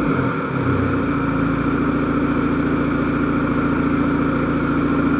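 Vauxhall Vectra 1.9 CDTI four-cylinder diesel with a larger turbo and a straight-through exhaust with no cats or silencers. Its revs drop back during the first second, then it settles into a steady, loud tickover.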